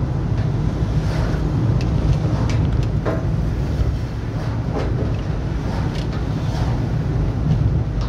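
Steady low road-and-wind rumble of a vehicle being driven, with a few faint ticks.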